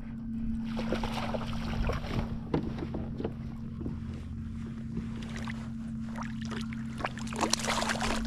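Water lapping and splashing against a kayak hull, with many short irregular splashes and a steady low hum underneath.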